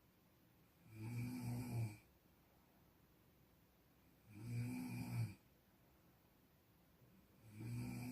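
Snoring: three low snores in a slow, even rhythm, one about every three and a half seconds, each lasting about a second.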